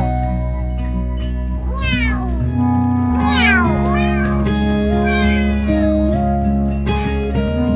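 A cat meowing several times, each call rising and falling in pitch, over steady background music.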